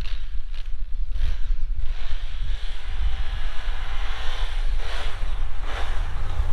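Wind buffeting the microphone with a low rumble, over a Can-Am Renegade 1000 ATV's V-twin engine running at a distance, its faint pitch rising and falling in the middle.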